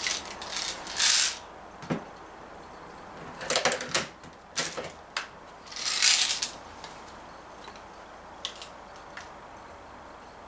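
Clicks, rattles and short sliding scrapes of a Daisy 340 spring-piston BB pistol being handled and cocked between shots, its slide worked back and forth; a few faint ticks follow in the second half.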